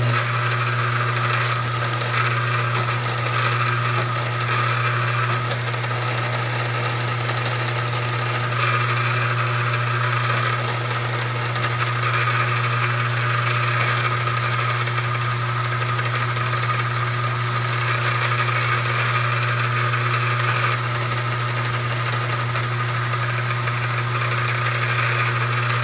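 Milling machine running with a two-flute end mill plunge-cutting deep into an aluminum block: a steady motor hum under a steady high whine from the cut.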